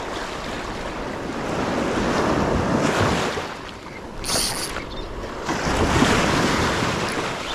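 Small surf breaking and washing up the beach in swells, with wind buffeting the microphone; a brief high hiss sounds a little after four seconds in.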